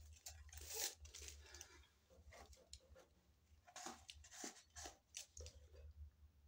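Faint paper tearing and crinkling as a wrapper is stripped off a drinking straw, the loudest rustle about a second in. A second run of crackles and clicks follows as the straw is pushed through a milkshake cup's lid, all over a low steady hum.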